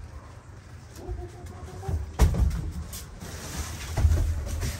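Dull thumps, two louder ones about two and four seconds in, with some plastic rustling, as bubble-wrapped packages are handled inside a steel shipping container.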